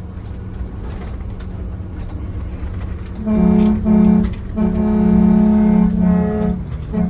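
Air horn on a diesel-pusher motorhome blown in several blasts starting about three seconds in: two short blasts, then one held for about two seconds, then another at the very end. Before the horn, the coach's steady engine and road drone.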